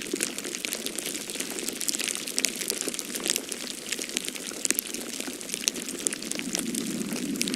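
Falling-snow ambience: a steady hiss dotted with many small, irregular ticks and patters.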